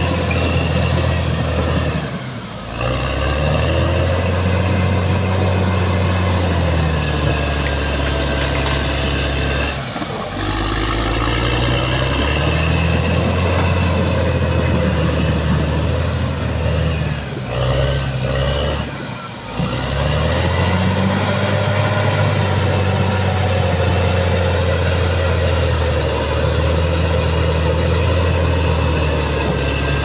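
Caterpillar D6R XL bulldozer's diesel engine running hard as it pushes soil with its blade, with a high whine over the low drone. The revs dip briefly about two seconds in, about ten seconds in, and twice between about 17 and 20 seconds. Each time the whine rises again as the engine picks back up.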